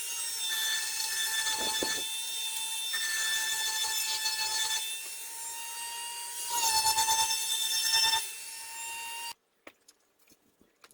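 Aerosol spray-paint can (rattle can) spraying in one long continuous pass: a loud hiss with a steady whistling tone, swelling louder for a stretch, then cutting off abruptly about nine seconds in. A few faint clicks follow.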